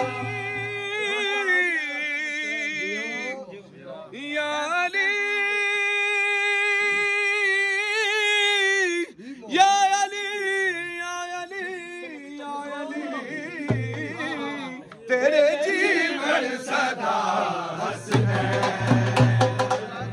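Manqabat, a devotional chant, sung by a solo voice that draws out long held notes with vibrato. Near the end the music grows fuller and denser, with a low steady drone under it.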